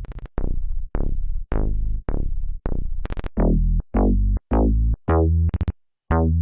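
IGNITO software synthesizer playing bass presets: a repeated pattern of short synth bass notes, about two a second, each starting bright and quickly dulling. A little after three seconds the preset changes from 'Party Bass' to 'Mad Style', and the notes come in heavier in the low end.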